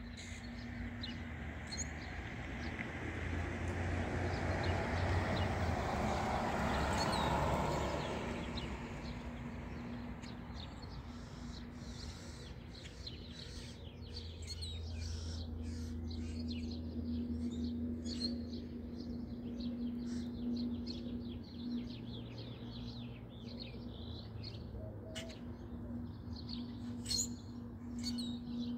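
Small birds chirping outdoors at dawn, many short high calls coming thick and fast, over a steady low hum. A broad rushing noise swells and fades over the first eight seconds.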